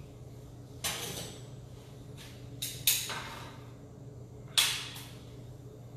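Kitchen handling noises: five short knocks or clatters, the loudest about three seconds in and again near five seconds, over a faint steady low hum.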